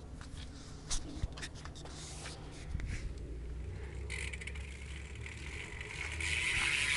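BMX rear freewheel hub (Eastern) ticking fast as the wheel spins freely: a rapid ratcheting buzz that gets louder near the end, after a few handling clicks at the start.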